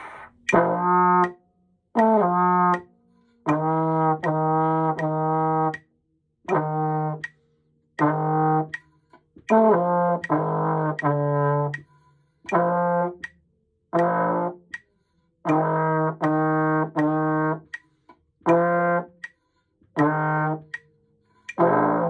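Trombone playing a practice exercise: a series of separate, cleanly tongued low notes, each lasting under a second with short breaks between, moving only a little in pitch.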